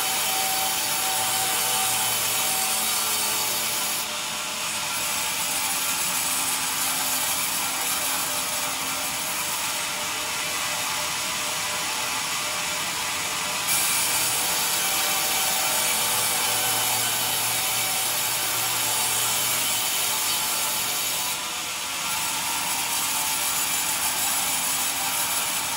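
Vertical band sawmill blade cutting lengthwise through a squared timber on the log carriage: a loud, steady sawing noise that dips briefly in loudness a couple of times.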